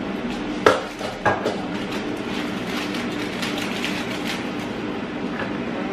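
Hot oil crackling in a frying pan over the steady hum of a running air fryer, with two sharp clinks of cookware about a second in.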